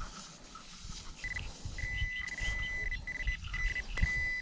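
Metal-detecting pinpointer probe beeping as it is pushed through the sand over a buried target. A single high tone starts in short pulses about a second in and runs together into a near-steady tone, over a low rumble of handling and wind.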